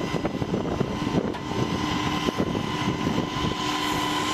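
Steady engine-like drone with a constant whine, overlaid by irregular rattling clicks.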